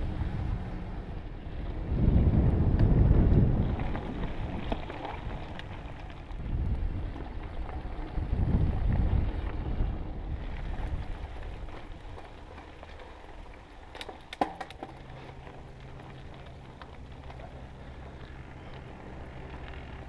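Wind buffeting a bike-mounted action camera's microphone in gusts while a mountain bike rolls over dirt singletrack, with low rumble from the tyres and trail. About two-thirds of the way through it drops to a quieter steady rush, broken by a few sharp clicks.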